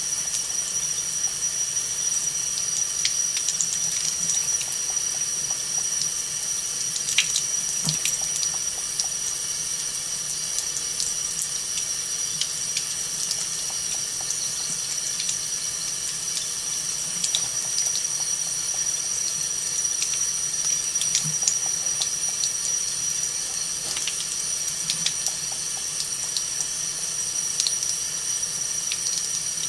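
Thin stream of water running steadily from a kitchen faucet into the sink, with scattered faint ticks and splashes.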